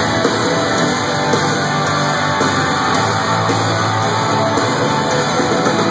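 Live country-rock band playing loudly on stage, heard through a phone's microphone.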